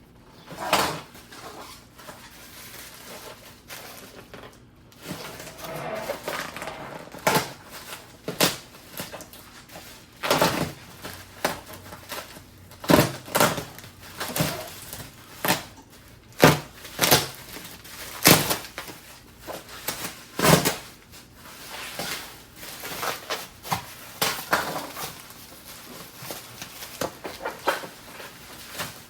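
Packing paper and bubble wrap being pulled off and crumpled by hand: irregular crinkling and rustling, with many short sharp crackles.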